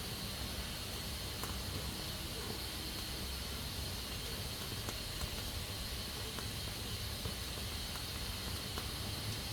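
Pressure cooker on a wood-burning stove hissing steadily as steam escapes from its valve, with a few faint ticks.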